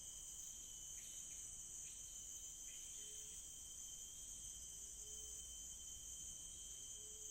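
Forest insect chorus: a steady, high, shrill drone of crickets with a thinner steady tone below it. A few short low calls sound about three seconds in and again around five and seven seconds.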